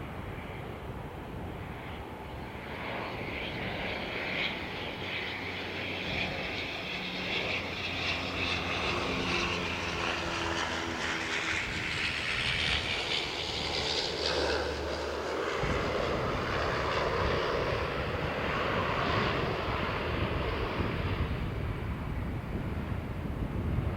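Airbus A380's four jet engines running, a steady rushing noise with a high whine that grows gradually louder.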